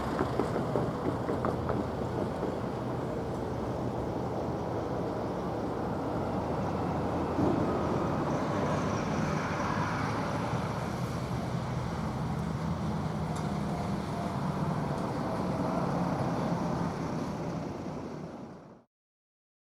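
Steady running noise of a vehicle with a low hum, with some wind on the microphone, fading out near the end.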